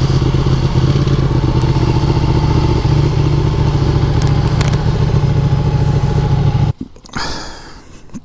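Ducati Panigale 959's V-twin engine running at a steady, unchanging pitch, then cut off suddenly about seven seconds in. A short clatter follows.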